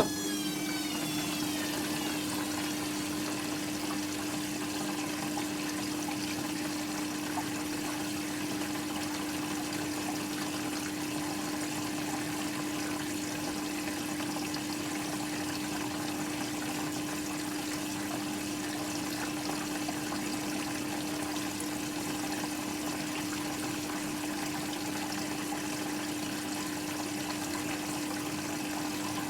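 Hoover Quattro washing machine on its rinse programme: water runs through the machine with a steady hiss and a constant electric hum, just after a click at the start.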